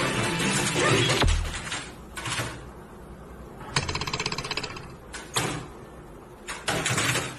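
Rapid clattering taps on a computer keyboard pounded by a dog's paws, in several bursts, one a fast run of about a dozen taps a second. It opens with a second of dense loud noise that ends in a low thump.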